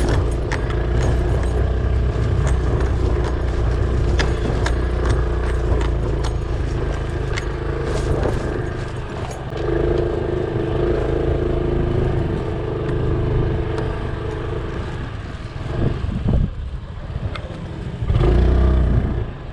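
Motor vehicle engine running steadily while travelling along a rough road, with scattered rattles and scrapes; it eases off briefly and surges again near the end.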